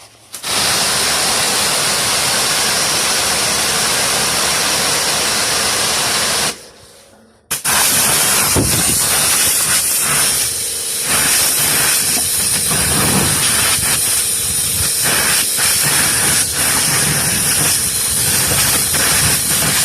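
A cutting tool running on the truck: a loud, steady hiss. It runs in two long stretches with a break of about a second after six and a half seconds.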